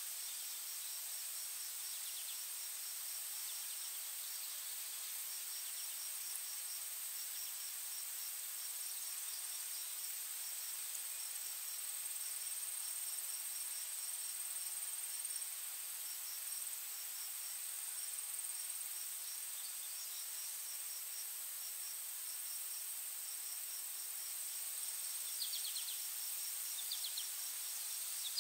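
Insects trilling: a steady high-pitched drone with a rapid, pulsing chirp running alongside it, and a few short chirps near the end.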